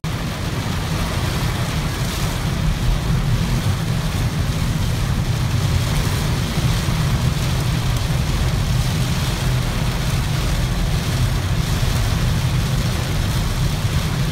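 Heavy cloudburst rain drumming steadily on a car's roof and windshield, heard from inside the cabin over the car's steady low rumble.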